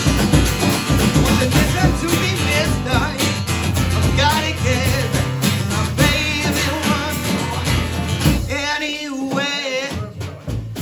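Live acoustic guitar and a small drum kit (snare, bass drum and cymbal) playing an upbeat tune, with a man singing into a microphone. Near the end the drums drop out for a moment while the singing goes on.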